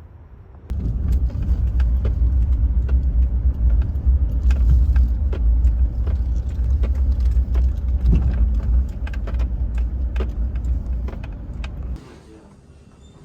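Car on the road: a steady low rumble with light rattles and clicks. It starts suddenly about a second in and cuts off abruptly near the end.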